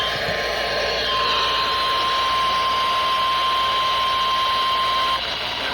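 Radio static: a steady hiss from a receiver not pulling in a clear station, with a steady high whistle running through most of it that stops near the end.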